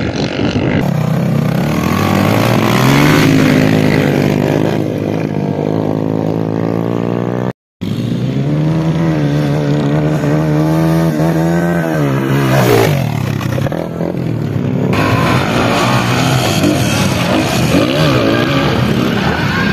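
Dirt bike engines revving on a motocross track, the pitch climbing and dropping with each throttle and gear change. The sound cuts out briefly about eight seconds in.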